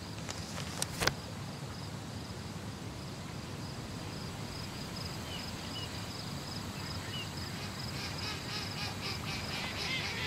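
Outdoor evening ambience: a steady, evenly pulsing high-pitched insect trill over a low background rumble, with two sharp clicks about a second in and a busier rapid chirping joining near the end.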